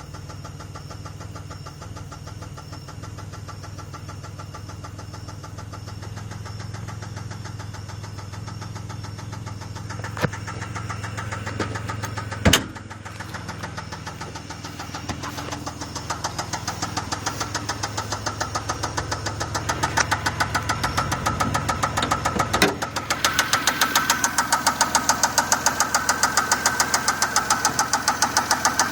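2004 Pontiac Grand Prix 3800 Series III V6 running with a rhythmic knocking/ticking that grows louder through the second half, which the owner fears is worn bearings. There is one sharp thump about halfway through.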